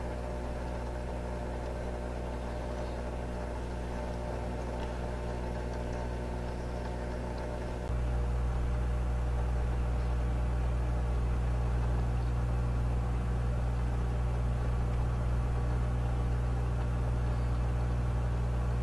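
Steady electric hum of a submersible aquarium pump running, louder from about eight seconds in.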